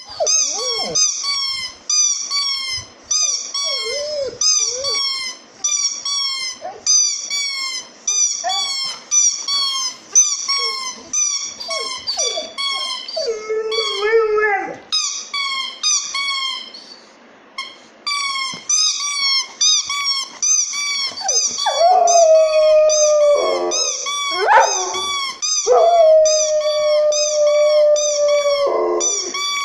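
A golden retriever howling along with a siren wail that repeats about twice a second. The siren pauses briefly about halfway through. In the second half the dog's howls become long, steady held notes.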